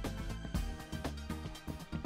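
Background music with a steady beat, about two beats a second, over held notes.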